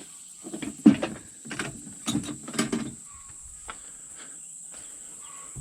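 Felling wedges knocking and clattering together as a couple are picked out of a small box: a handful of sharp knocks in the first three seconds, the loudest near the start.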